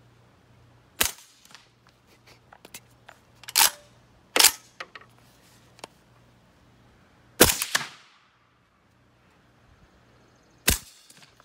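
Suppressed 5.45x39mm OSC-13 rifle with a Dead Air Sandman suppressor firing, five sharp reports spread out a few seconds apart. Faint clicks come between the shots, and one report trails off briefly.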